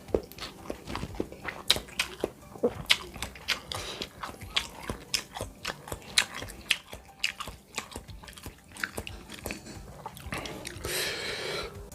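Close-up mouth sounds of someone biting and chewing bakso meatballs: wet smacks and clicks several times a second, with a short breathy rush near the end.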